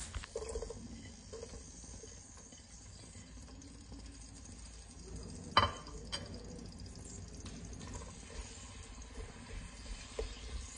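Diced onion frying gently in oil in a pot, a faint steady sizzle, with one sharp knock about halfway through. A wooden spoon stirs the onion near the end.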